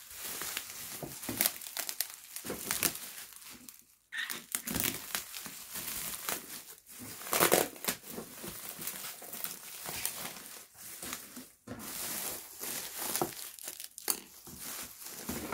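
Plastic bubble wrap crinkling and rustling as it is pulled and unwrapped from a boxed lamp, in irregular bursts of crackles, the loudest about seven and a half seconds in.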